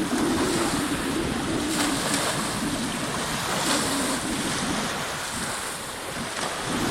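Sea waves washing, with wind buffeting the microphone.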